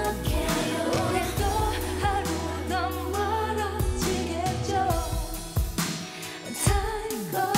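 Female voices singing a K-pop song over a pop backing track with steady bass and a regular beat.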